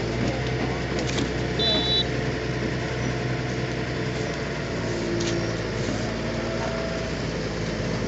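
Heavy diesel engine idling steadily, an even low hum with no revving.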